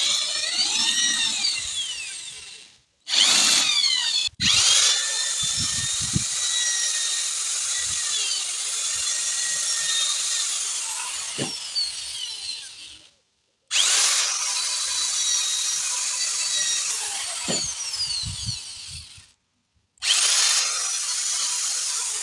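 Handheld electric drill boring out the steel stub of a broken bolt in an aluminium engine block with a size-7 bit, on the final pass near the thread. It runs in five stretches with brief stops about 3 and 4 seconds in, around 13 seconds and near 19 seconds. The motor's whine glides up as it spins up and down as it winds off.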